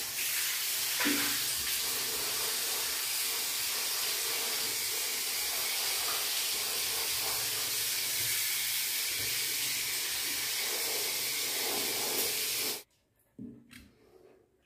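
Handheld shower head spraying water onto a husky's wet coat and the tiled floor, a steady hiss that switches on at the start and cuts off suddenly about thirteen seconds in. A light knock follows shortly after.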